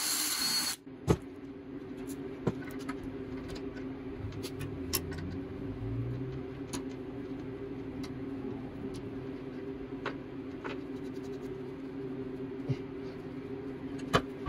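A cordless drill runs on the bicycle wheel's axle nut and stops about a second in. After that there is a steady low hum with scattered faint clicks and ticks while the rear wheel spins freely on its loose hub.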